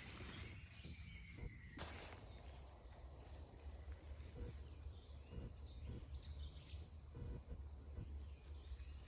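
Insects, crickets or similar, chirring in a steady high-pitched drone that comes in about two seconds in, over faint low background noise.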